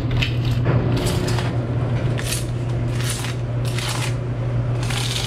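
Knife blade scraping along the edges of newly set mosaic tiles in short strokes, about one a second, over a steady low hum.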